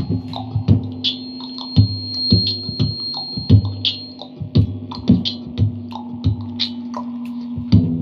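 Acoustic guitar playing picked and strummed chords in a steady rhythm.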